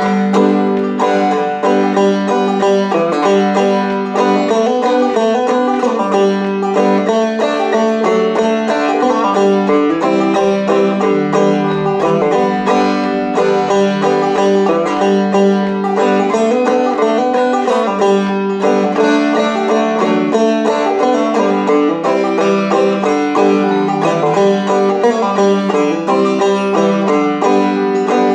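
Five-string banjo played clawhammer style in open G tuning: a steady, unbroken stream of plucked notes with no singing.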